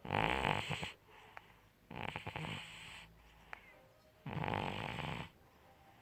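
Domestic cat snoring in its sleep: three snores about two seconds apart, each about a second long, with quieter breathing between.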